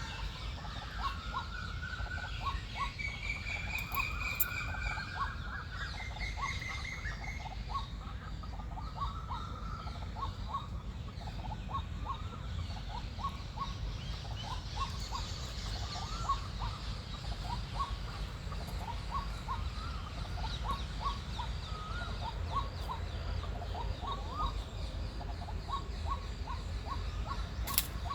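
White-breasted waterhen calling a long, monotonous series of short repeated notes, about two a second. Other birds whistle longer notes over it in the first few seconds.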